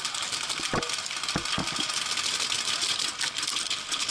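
Dense, continuous crackle of many paintball markers firing rapidly at once, with paintballs striking around the bunker, and a few louder, closer pops in the first two seconds.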